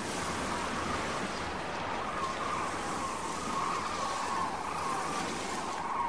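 A flock of large migrating birds calling in flight overhead: many overlapping calls blend into a continuous chorus over a steady rushing noise.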